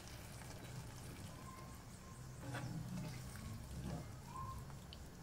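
Wooden spoon stirring a thin, brothy seafood stew in a pan: faint liquid sloshing, with two light knocks of the spoon against the pan, about two and a half and four seconds in, over a low steady hum.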